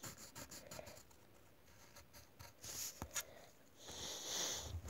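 Faint scratchy strokes of a Crayola colour rubbed back and forth on paper, shading in a drawing. The strokes come in short spells with small ticks between them, the longest spell near the end.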